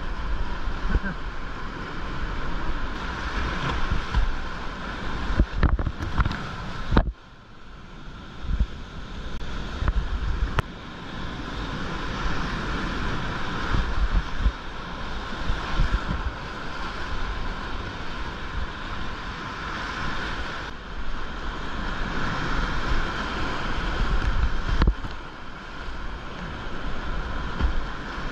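Whitewater rapids at about 1000 cfs rushing around a kayak, heard close up through an action camera, with splashes and water and wind buffeting the microphone. About a quarter of the way in the sound suddenly drops and goes dull for a second or two, then builds back.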